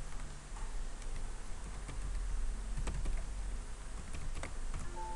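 Computer keyboard typing: a few separate keystrokes while a column's data type is typed in, over a steady low hum. A short electronic tone starts near the end.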